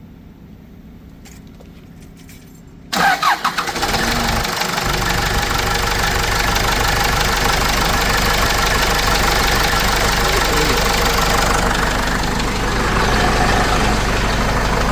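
Case 586E forklift's Cummins 4BT four-cylinder diesel starting about three seconds in, catching with a few loud uneven beats and then settling into a steady idle. The owner still hears a slight knock in it, which he puts down to the main and rod bearings.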